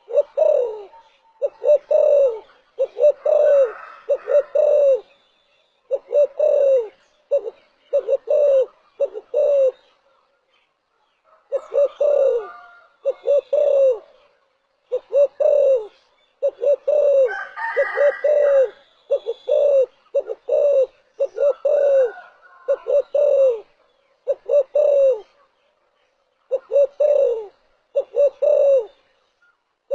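Spotted dove cooing: repeated phrases of two to four low, slightly falling coos, with short pauses between the phrases.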